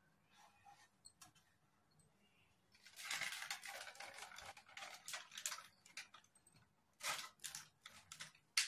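Butter paper crinkling and rustling as it is peeled off a slab of barfi. There is a long spell of crackle about three seconds in and shorter ones near the end.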